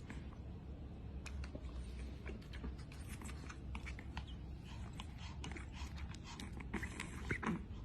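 A puppy's quiet, irregular small clicks and scuffling, with a few louder ones near the end.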